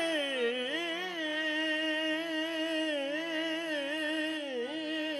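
Qawwali singer holding a long, wavering note without words, his pitch sliding up and down, over harmonium notes that step between pitches.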